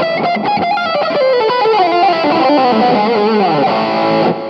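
Electric guitar played through a Flatsons KE1 multi-effects pedal with an analog delay and a little reverb on: a run of single notes stepping mostly downward, then a higher note, cut off near the end and leaving a fading tail.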